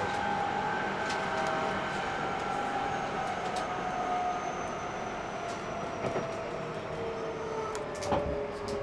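Seibu 6000 series renewal car's GTO-inverter traction motors heard from inside the car: several whining tones fall steadily in pitch as the train slows. Scattered clicks from the running gear, with a sharper knock about eight seconds in.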